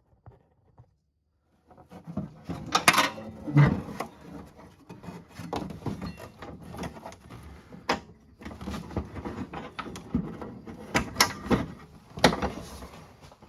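Hand work on a snowmobile's hood pins and hood: irregular rubbing and clattering of parts with several sharp clicks and knocks, starting about two seconds in.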